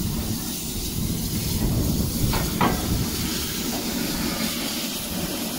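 Steam hissing steadily from a standing Hawthorn Leslie-built steam tank locomotive, with a low rumble underneath.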